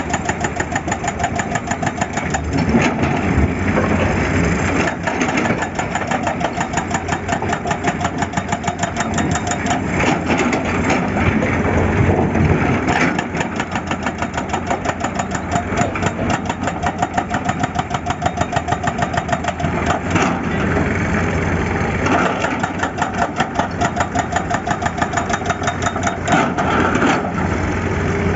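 Heavy diesel engine of an excavator running steadily, with a fast, even pulsing beat throughout.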